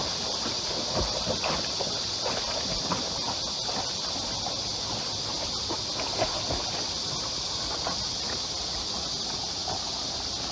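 A dog splashing as it bounds and swims through a shallow creek: many quick, irregular splashes over a steady high hiss.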